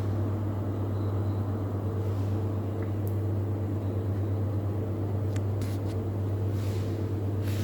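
A steady low hum, with a few faint, brief scratches and rustles in the second half, likely the kittens moving in the box.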